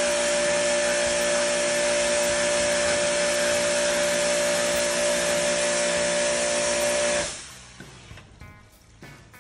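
Portable pressure washer spraying water through a nozzle onto a split-type air conditioner's indoor coil: a steady motor whine over the hiss of the water jet. It cuts off suddenly about seven seconds in.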